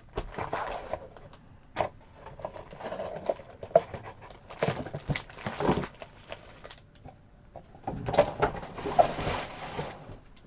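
Trading cards being pulled out of a pack and flipped through by hand: crinkling wrapper and cards sliding against each other in uneven bursts, with small clicks and taps.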